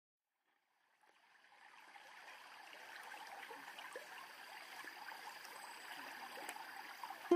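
A faint, even rushing noise like running water, fading in from silence about a second in, with a faint steady high tone above it.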